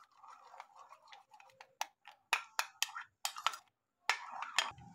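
Metal spoon stirring a thick mayonnaise and chili garlic paste mix in a bowl, knocking and scraping against the bowl in a string of irregular clicks, with a brief scrape near the end.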